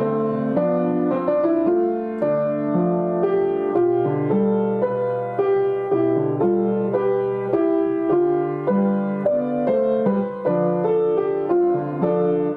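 Piano music: a melody over chords, notes struck at an even pace.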